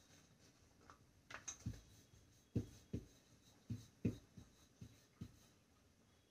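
Wooden rolling pin rolling out roti dough on a marble rolling board: a run of soft, irregular knocks as the pin works back and forth, with a few sharper clicks in the first second and a half.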